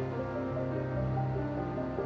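Background music: slow, calm instrumental track with sustained notes and a steady low drone.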